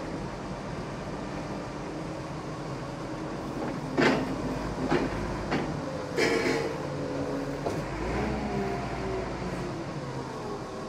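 Large forklift's engine running steadily while it pushes a bundle of wrapped lumber into a shipping container. A handful of sharp metal clanks and knocks come from about four to eight seconds in, the loudest near the start of the group and again about two seconds later.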